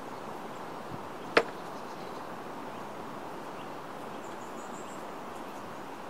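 Steady outdoor hiss of rain and wind with no siren sounding, broken by a single sharp tick about a second and a half in. A few faint high chirps come near the end.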